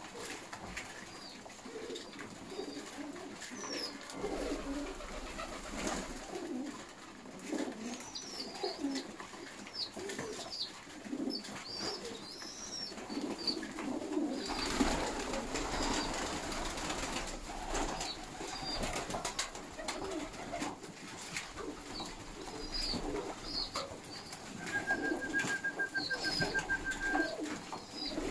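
A flock of Baku fighting pigeons cooing as they feed, with frequent sharp clicks of pecking and shuffling on the wooden loft floor. Short high chirps come and go throughout.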